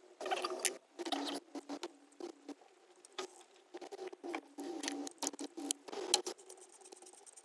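Irregular clicking, scraping and small metal rattles of hand tools and parts as ignition coil packs and spark plugs are removed from a V6 engine, over a steady low hum.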